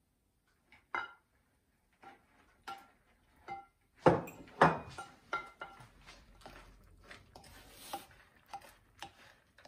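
Wooden spoon knocking and scraping against a ceramic mixing bowl as a stiff, milk-moistened fruit dough is stirred, each knock making the bowl ring briefly. A few separate clinks come first, and the knocking grows louder and more frequent from about four seconds in.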